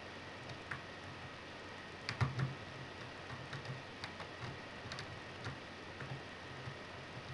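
Lock pick working the pins of a MILA Evolution euro profile cylinder: scattered faint metallic ticks and clicks, with a louder pair of clicks about two seconds in.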